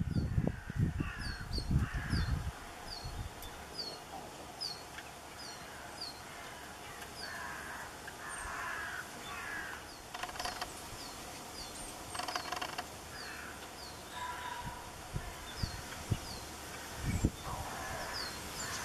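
Mallard ducklings peeping: a long string of short, high, falling peeps, about one or two a second, with lower harsh calls scattered between them. Wind rumbles on the microphone in the first couple of seconds and again near the end.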